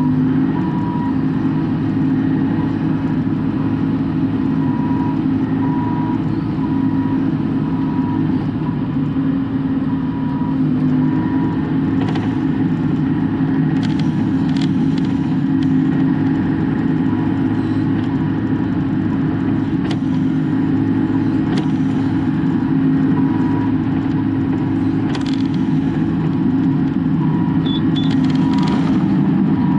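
Bobcat E42 mini excavator's diesel engine running steadily, heard inside the closed cab with the air-conditioning fan hissing. A faint short beep repeats on and off through much of it.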